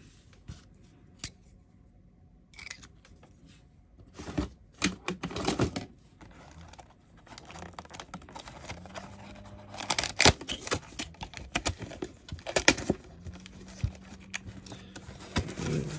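Cardboard trading-card booster box being handled and opened by hand: after a few quiet seconds, scattered clicks, scrapes and soft tearing as the lid is pulled up and folded back into a display.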